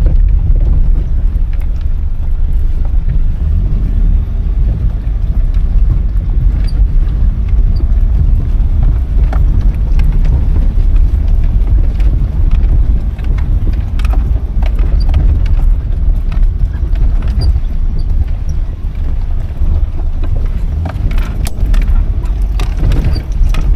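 Car driving slowly over a rough, rocky mountain road: a steady low rumble of engine and tyres, with scattered knocks and rattles from the bumps.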